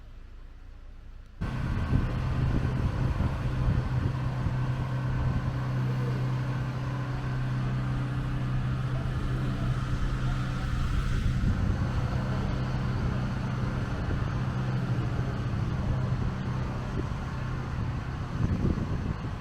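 A vehicle engine running steadily with a constant low drone and road noise, starting abruptly about a second in.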